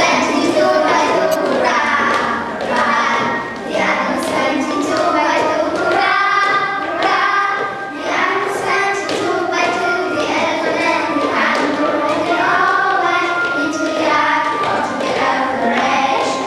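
A group of children singing a nursery rhyme together, with now and then a thump.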